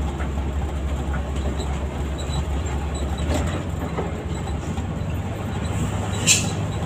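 Intercity coach's engine and road noise heard from inside the cabin at the front while driving, a steady low drone with light rattles. A short, sharp burst of high hiss a little past six seconds in.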